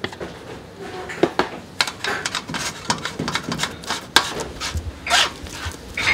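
A spatula scraping and pressing steamed monkfish liver through a fine metal-mesh drum sieve, making a repeated rasping scrape on the mesh. A few light knocks come first as chunks of liver are dropped onto the sieve.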